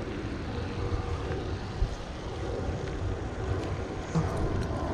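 Wind buffeting the camera microphone as an uneven low rumble, with one short click of handling about two seconds in.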